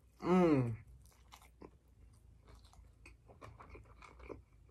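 Close-miked mouth chewing a bite of sushi, a string of faint wet clicks and soft crunches. A short voiced sound at the start, falling in pitch.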